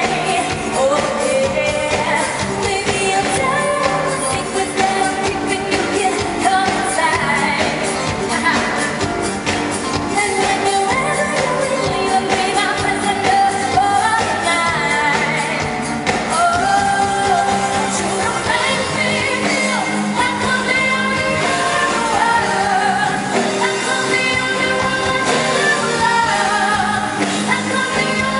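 Live pop music: a female singer sings over a loud full band backing, with the echo of a large hall.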